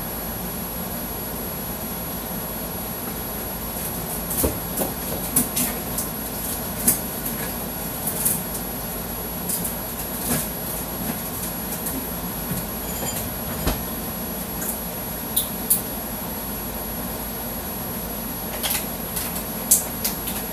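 Steady background hum with about a dozen scattered clinks and knocks of dishes and utensils being handled during kitchen prep.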